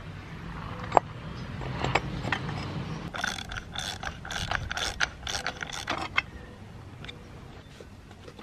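A metal ratchet clicking in a quick run of about ten clicks, roughly three a second, that stops about six seconds in. A few single clicks come before it.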